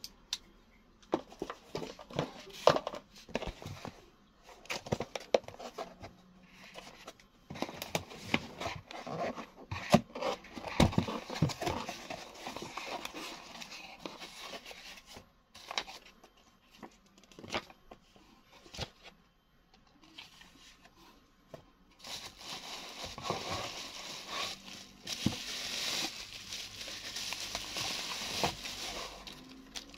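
Unpacking a cardboard box by hand: scattered scrapes, taps and rustles of cardboard and foam as it is cut and the flaps are opened, then plastic bubble wrap crinkling steadily for the last several seconds as the wrapped headlamp is drawn out.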